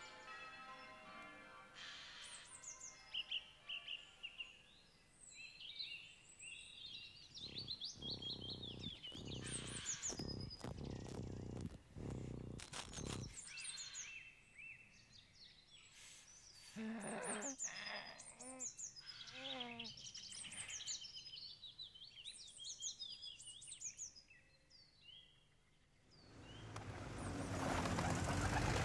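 Small birds chirping and twittering in quick repeated calls, over soft music at the start. A few rushing noises come midway, and near the end the steady noise of city traffic swells up.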